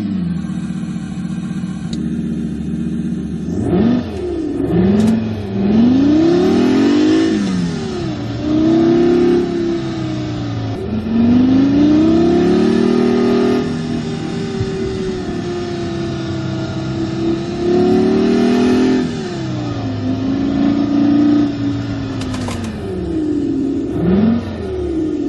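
SoundRacer's simulated sports-car engine sound, played through a car stereo. It revs up and drops back again and again, with short loud rises between stretches of lower running.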